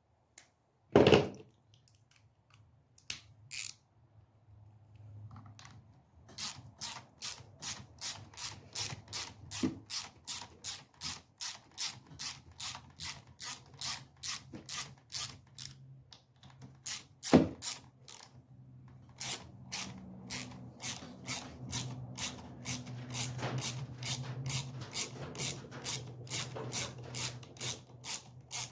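Ratchet wrench clicking in long runs of quick, even strokes, about two or three clicks a second, as bolts are run back in during reassembly of the saw. A single loud knock sounds about a second in and another past the middle, where the clicking pauses.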